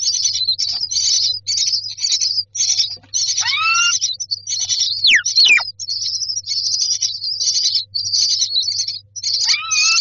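Common myna nestlings begging for food: a steady stream of short, harsh, hissy chirps, about two a second. A few louder calls slide in pitch through it, one rising about a third of the way in, two quick falling ones about halfway, and another near the end.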